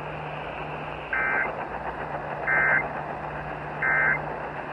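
Emergency Alert System end-of-message (EOM) data tones: three short, identical bursts of warbling two-pitch digital tones, about a second apart. They mark the close of the test alert and play over steady radio hiss and a low hum.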